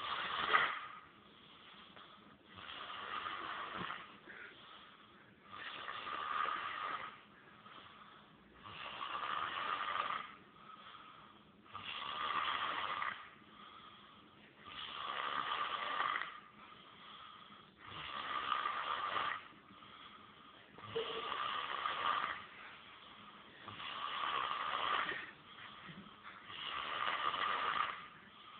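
A sleeping man snoring, one loud snore about every three seconds, with quieter breaths between the snores.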